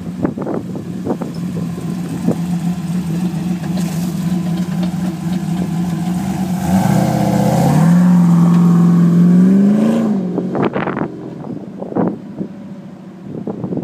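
GM Performance Parts LS3 6.2-litre V8 in a Jeep crawler running at low speed as the Jeep drives past. It gets louder as the Jeep comes close and is loudest from about seven to ten seconds in, where the engine note dips and then climbs. It then fades as the Jeep drives away.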